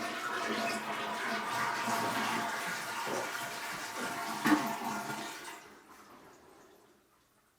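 Toilet flushing with its water supply shut off: a steady rush of water as the tank empties and the bowl drains, with one brief louder splash about four and a half seconds in. The rush fades away after about six seconds, and no refill follows.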